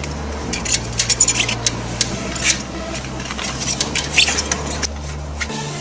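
Hands working a road-bike clincher tyre and inner tube: irregular light clicks and rustles as the rubber and tube are handled and fitted, loudest in the first half and again about four seconds in, over a steady low hum.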